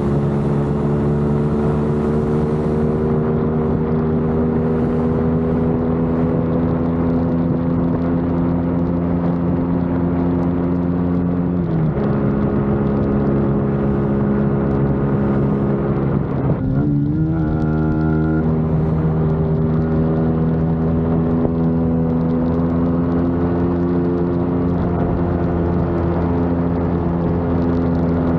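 Motorcycle engine running under way, its note slowly climbing in pitch. The note breaks and drops briefly about twelve seconds in and again around seventeen seconds in, then climbs again.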